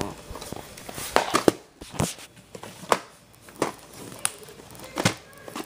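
Handling noises: a string of sharp plastic clicks and knocks, one every half second to a second, with faint crinkling between, as a VHS tape case is handled and opened.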